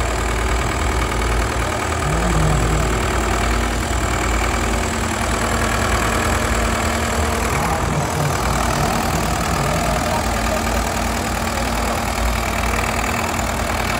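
Modified tractor's exposed diesel engine idling steadily, with a low, even rumble.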